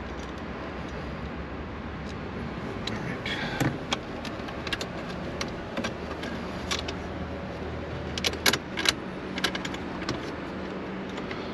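Small metal dash-mount parts and a tool clicking and tapping against the dashboard plastic as they are worked into place, over a steady low hum. There are a few taps about three and a half seconds in and a quick cluster of clicks around eight to nine seconds.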